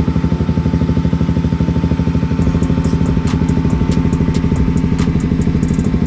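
KTM RC 200's single-cylinder four-stroke engine idling through a Yoshimura R-11 full exhaust system, a steady, even pulsing. A few sharp ticks come in around the middle.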